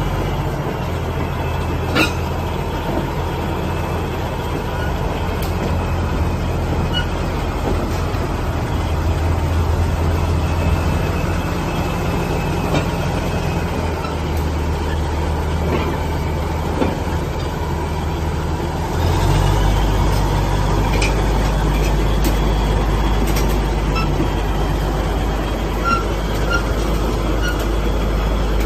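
Shantui SD22 bulldozer's diesel engine running steadily, with a few sharp clicks. About two-thirds of the way in, the engine note shifts deeper and gets louder.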